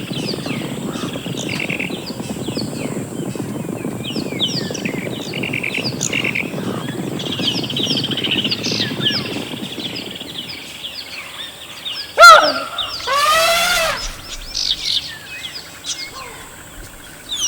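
Wild birds chirping and calling over a low rumbling background for the first ten seconds. About twelve seconds in, a sharp click comes, then a loud animal call made of quickly repeated rising notes.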